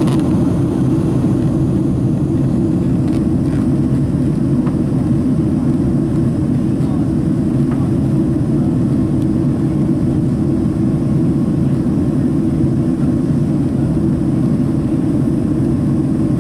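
Steady low cabin noise of a Boeing 767-300 in flight, heard from a seat near the wing: jet engines and rushing air blended into an even rumble.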